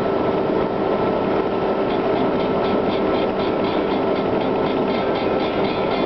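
Humvee's V8 diesel engine and road noise heard from inside the cab at steady cruising speed. A fast, even rattle joins in about two seconds in.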